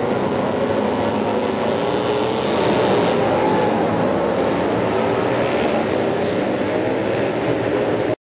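Flat track racing motorcycle engines at speed: a dense, steady engine noise that swells a little two to three seconds in.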